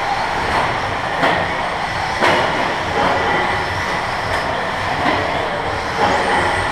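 Radio-controlled 2WD buggies racing on a clay track: a steady mix of motor whine and tyre noise, broken by several sharp clacks as the cars land and bump.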